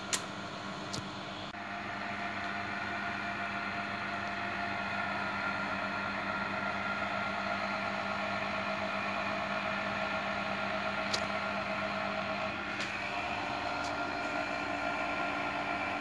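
Steady mechanical hum of a running electric machine, holding several tones. It shifts slightly about a second and a half in, and a few faint clicks sound over it.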